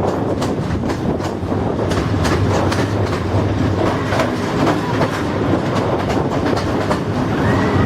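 Train running on the rails: a steady rumble with irregular clicks of wheels over rail joints. A high, wavering tone starts near the end.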